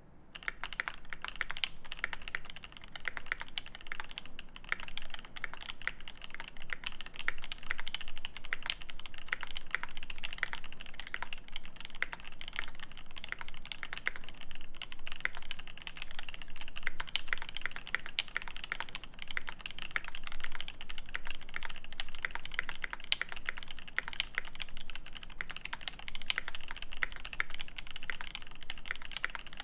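Fast continuous typing on a custom mechanical keyboard with lubed Alpaca linear switches in a brass plate and GMK keycaps: a dense run of keystroke clacks that starts just after the opening moment.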